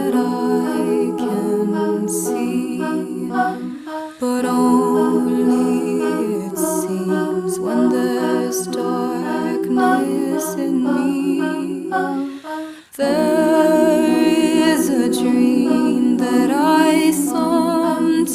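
Background music of a cappella vocals, layered humming and singing over a steady low held note, with brief pauses about four seconds in and again around thirteen seconds in.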